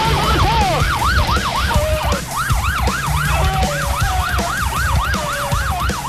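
Police car siren on a fast yelp, its pitch sweeping up and down about three to four times a second, with a music beat pulsing underneath.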